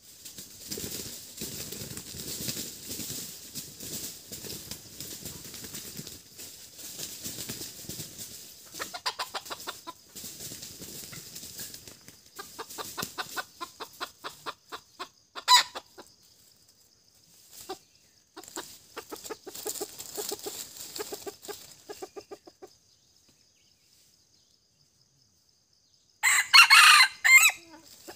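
Wild red junglefowl rooster clucking in quick runs of short pulses, with one sharp call about halfway through. Near the end it crows once, briefly and loudly.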